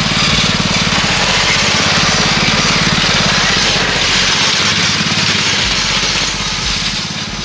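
Riding lawn mower engine running steadily with a fast, even firing beat, easing off slightly near the end.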